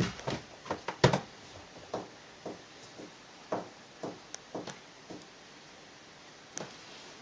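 A scattering of short, soft knocks and clicks, the loudest about a second in.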